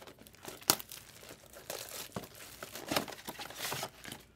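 Foil wrapper of a Bowman Draft Sapphire trading-card pack crinkling and tearing as it is opened by hand: a string of sharp crackles, with one louder snap under a second in.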